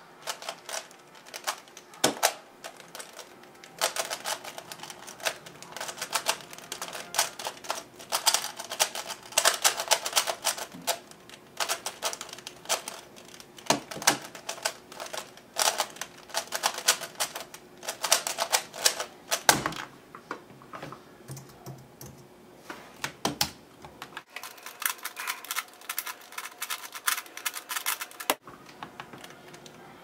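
Rapid plastic clicking and clacking of a FII 3x3 speedcube, lubricated with shock oil, as its layers are turned fast one-handed for about twenty seconds. The run ends with a thump, and a shorter burst of turning comes a few seconds later.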